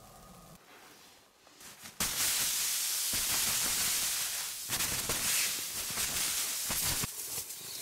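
Close rustling of synthetic shelter fabric, starting suddenly about two seconds in as a loud hiss and then going on in uneven surges.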